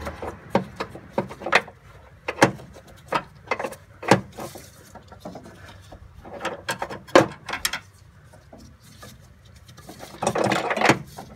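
Irregular clicks and knocks of hands working among hard plastic and metal parts in a car's engine bay while pulling out the clutch master cylinder, with a longer rustling scrape about ten seconds in.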